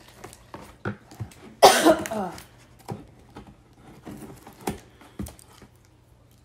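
Scissors cutting and a cardboard box being handled: scattered sharp snips, clicks and rustles. About two seconds in comes a brief vocal sound, the loudest thing heard.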